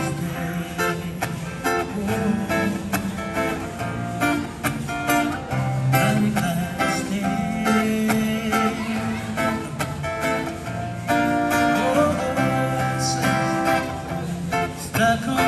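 Acoustic guitar played live and amplified through a small PA system: an instrumental passage without singing.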